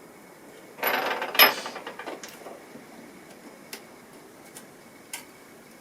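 Small hand tools and parts being handled during a phone repair: a loud clatter about a second in with a brief metallic ring that rattles away, then a few faint clicks.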